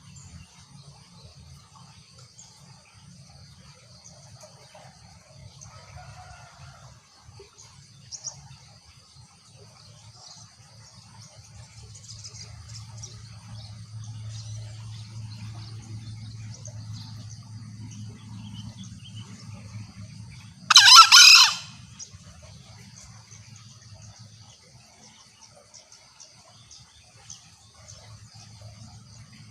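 Green junglefowl call: one short, loud, high call about two-thirds of the way in, over a steady high-pitched insect-like buzz.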